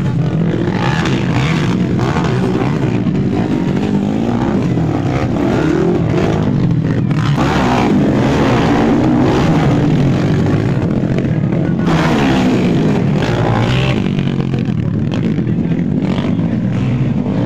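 Motocross dirt bike engines revving hard, the pitch rising and falling as the throttle opens and closes; loudest about eight seconds in, as a bike takes off over a dirt jump close by.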